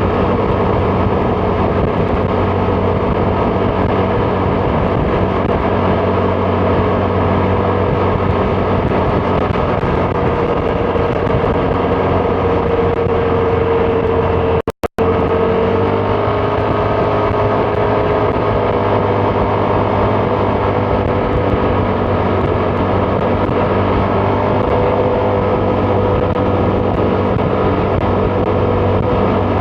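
Vespa GTS 300 scooter's single-cylinder engine running steadily while riding, with wind noise. The sound cuts out for a split second about halfway through.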